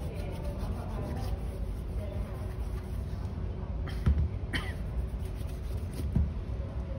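Shoe-shine work on a leather shoe over a steady low hum: two dull knocks, about four and six seconds in, as the shoe is handled against the tabletop, with a lighter click between them.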